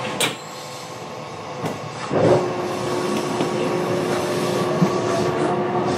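Running noise inside a JR West 227 series electric train pulling away from a station. From about two seconds in, the traction motors' whine rises steadily in pitch as the train gathers speed, over a steady hum, with a few sharp clicks from the wheels and track.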